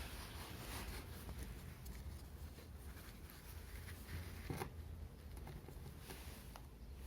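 Faint handling noise: light rustles and small clicks over a low steady hum, with one sharper knock about four and a half seconds in.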